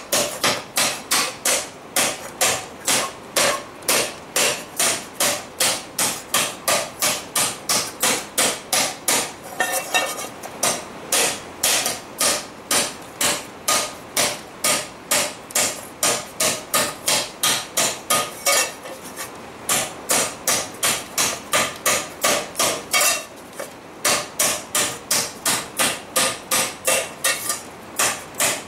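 Hand hammer cold-working a forged pan over a stake held in a vise, a steady run of sharp metal-on-metal blows at about three a second. There are two brief pauses about two-thirds of the way through.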